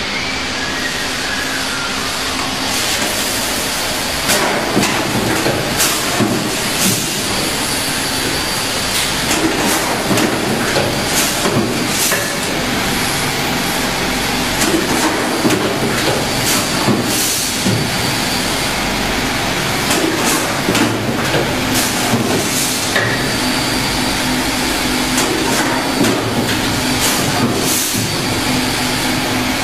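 Apple processing machine running: a loud, steady mechanical hum and hiss with irregular knocks and clatters.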